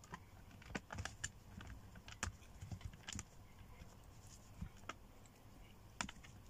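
Close eating sounds from eating by hand: small irregular clicks and taps of fingers picking rice from a plastic takeaway tub, mixed with chewing and lip smacks.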